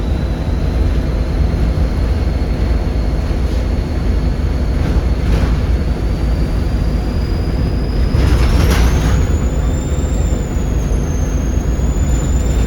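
Volvo D7C 7.3-litre diesel bus engine pulling hard, with a thin turbocharger whistle over the engine rumble that climbs steadily in pitch as the revs build. A brief rushing noise comes about two-thirds of the way through.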